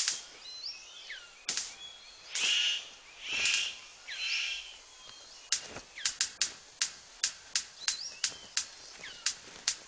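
Male superb bird of paradise courting a female: short sliding whistled chirps and a few harsh rasping calls. About halfway through, a steady run of sharp clicks sets in, roughly three a second.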